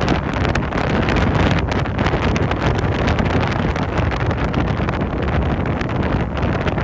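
Ocean surf breaking in a steady rush of noise, with wind buffeting the microphone.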